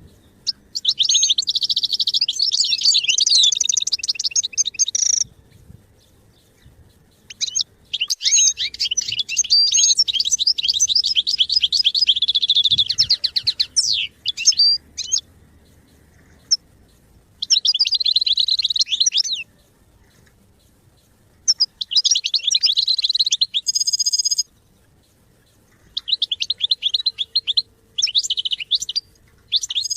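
European goldfinch singing: rapid, twittering, liquid song phrases of a few seconds each, broken by short pauses.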